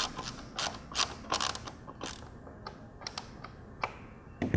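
Hand screwdriver turning Phillips screws into a plastic headlight reflector housing: a run of short creaks and clicks, thick for the first two seconds and then thinning out, with one sharp knock near the end.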